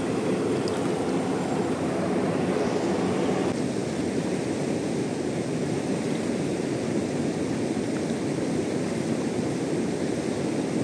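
Fast-flowing river rushing over rocks: a steady, even wash of water noise.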